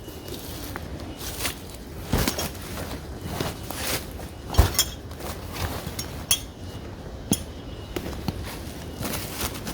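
Irregular clinks and knocks of handled gear, with one heavier knock about halfway through.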